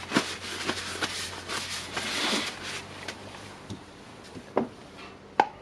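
Handling noise of hammer drill parts on a workbench: scattered light knocks and clicks, with a short rustle about two seconds in.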